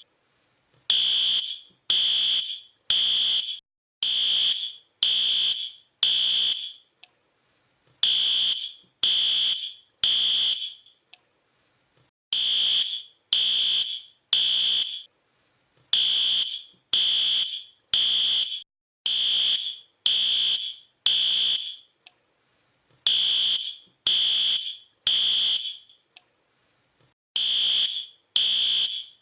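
Fire alarm sounding a high-pitched beep in the temporal-three pattern: three beeps about a second apart, then a longer pause, repeating over and over. This is the standard evacuation signal.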